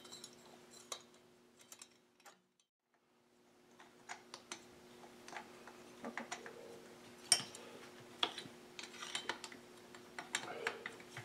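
Scattered light metallic clicks and taps of cylinder bolts and hand tools being worked on a Husqvarna 572XP chainsaw's cylinder, over a faint steady hum. The sound drops out to dead silence for about a second early on.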